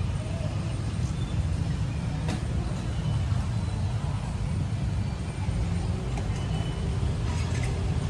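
Steady low outdoor rumble, like traffic or wind, with a few faint clicks.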